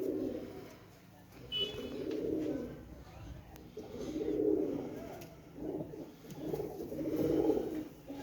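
Domestic pigeons cooing, a series of low coos of about a second each, repeated several times, with a brief higher chirp about one and a half seconds in.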